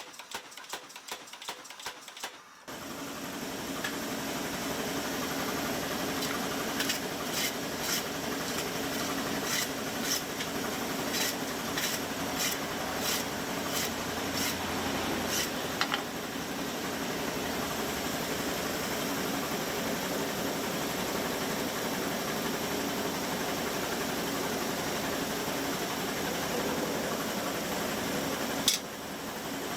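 Power hammer running with a steady mechanical drone, striking a hot Damascus steel billet. It starts about three seconds in, with a run of sharp blows between about seven and sixteen seconds in.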